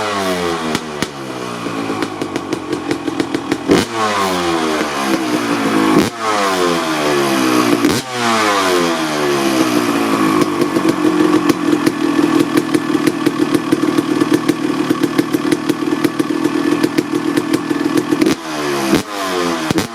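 1995 Honda CR250R's single-cylinder two-stroke engine, breathing through a Pro Circuit R-304 silencer, being revved: several sharp throttle blips with the revs falling away after each, then held steady at raised revs for about eight seconds before dropping back and blipping again near the end.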